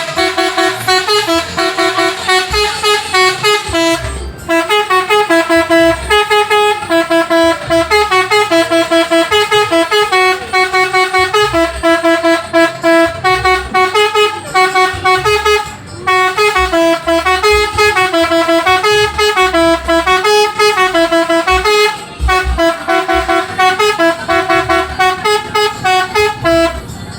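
Bus telolet horn, a multi-tone musical air horn, playing a long, fast melody of short pulsing notes that jump between a few pitches, with three brief breaks.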